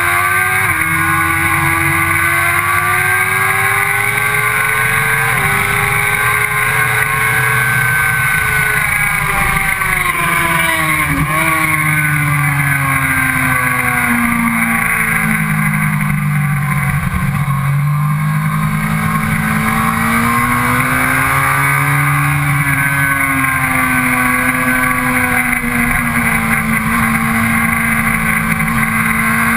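Sport bike engine at high revs heard from onboard at track speed, its pitch climbing and falling with throttle, gear changes and braking through the corners, with a sharp drop about a third of the way in and a long slow fall and rise after it. A steady rush of wind noise runs under the engine.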